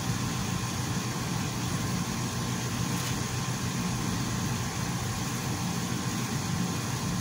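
A steady low hum with a faint hiss above it, even throughout, with no distinct knocks or clatter: kitchen background noise from running machinery or the lit burner.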